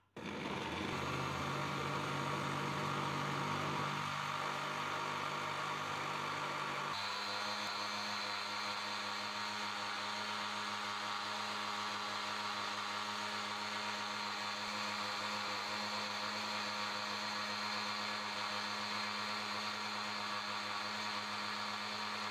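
Electric blender motor starting up and running steadily, blending frozen strawberries with cream into an ice cream mix. The pitch and tone of the motor shift about seven seconds in.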